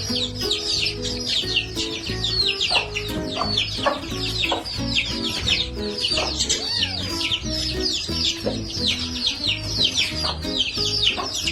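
Background music under a dense, continuous stream of quick, high bird-like chirps, each sweeping downward in pitch, several a second and overlapping.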